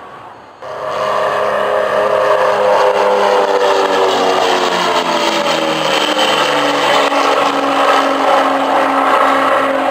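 Single-engine propeller aircraft flying past, its engine loud and steady, then falling in pitch as it goes by. The sound starts abruptly about half a second in.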